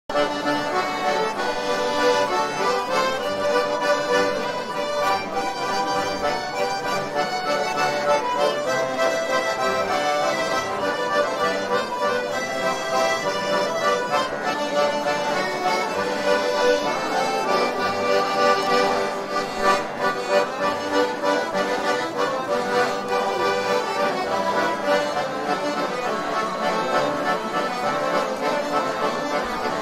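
Instrumental background music with sustained notes.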